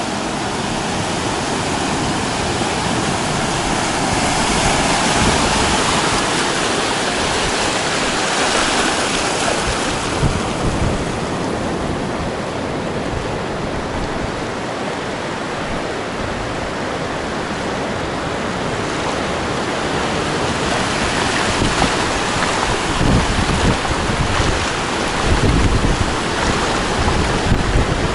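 Ocean surf washing onto a beach in a continuous rush, one wave swelling louder a few seconds in. Wind buffets the microphone in the last few seconds.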